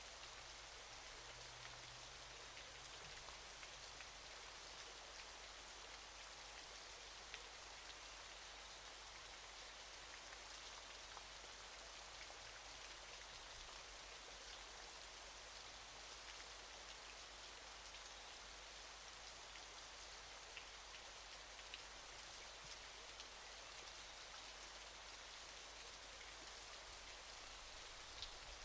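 Faint, steady hiss of water falling from a waterfall, with a few small splash-like ticks scattered through it.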